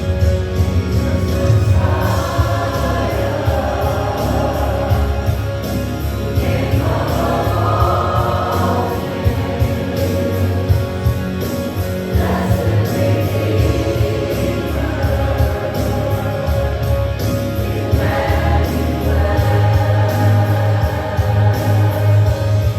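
Gospel worship music: a group of voices singing over instruments, with a steady beat.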